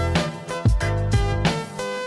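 Background music with a steady beat, bass line and drums.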